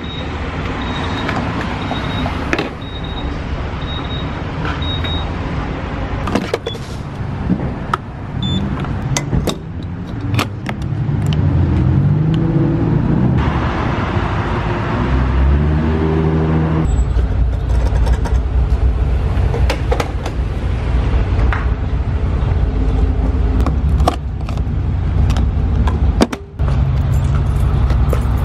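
Gas station forecourt sounds while refuelling: a short electronic beep about once a second for the first few seconds and scattered clicks and knocks of the fuel door and nozzle. A vehicle engine then rises in pitch in steps as it pulls away, followed by a steady low engine rumble.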